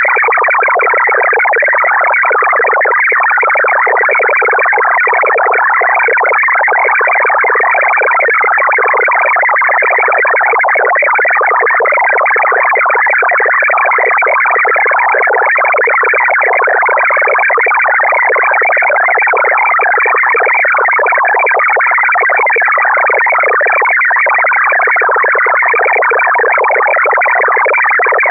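MFSK128 digital data signal centred around 1400 Hz: a loud, dense warble of many fast-changing tones with no bass and no treble.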